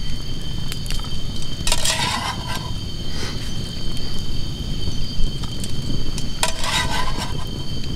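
Log campfire crackling with scattered sharp clicks over a steady low rumble, while insects trill continuously at a high pitch. Two short, louder, noisy bursts come about two seconds in and again near the end.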